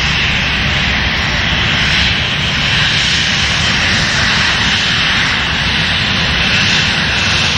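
A Boeing 737-800 runs its twin jet engines as it rolls along the runway: a steady low rumble with a hiss above it that does not rise or fall.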